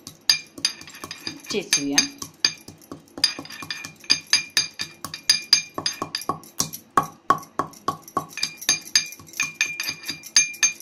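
Cinnamon, black pepper and cloves being crushed with a pestle: quick repeated strikes, about three a second, each with a short metallic clink and ring.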